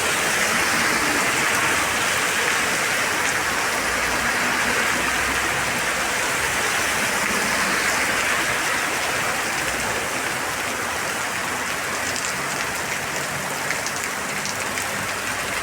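Very heavy rain pouring down in a steady, dense hiss, easing slightly near the end.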